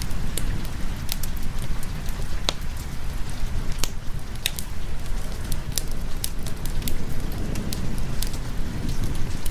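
Wood fire crackling, with irregular sharp pops several times a second, over steady rain and a low continuous rumble.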